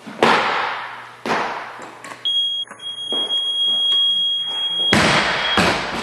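A weightlifter's feet slam onto the lifting platform as a barbell is caught overhead, followed by a second stamp about a second later. A steady high electronic beep then sounds for about three seconds: the referees' down signal. Near the end the loaded barbell with bumper plates crashes onto the platform and bounces once.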